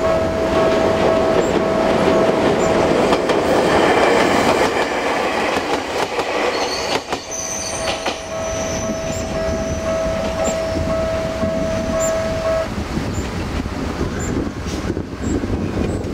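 An Ueda Electric Railway electric train passes over a level crossing while the crossing's electronic warning alarm sounds as a steady tone. The train's running noise is loudest in the first half and then fades. The alarm stops about three-quarters of the way through, as the crossing clears.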